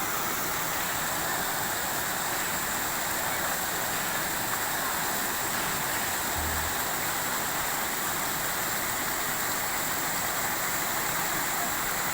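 Waterfall rushing steadily, an even unbroken hiss of falling water.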